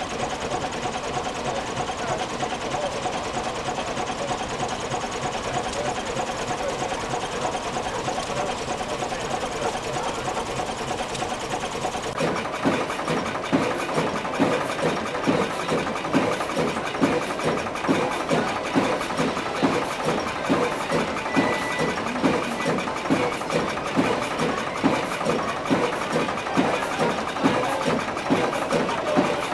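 A vertical three-cylinder stationary engine running steadily. About twelve seconds in, it gives way to a large horizontal flywheel stationary engine running with a slow, even beat, a little more than one thump a second.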